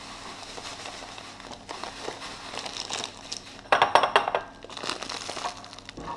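Clear plastic breadcrumb bag crinkling as it is handled over a bowl, with the loudest run of crackling about four seconds in.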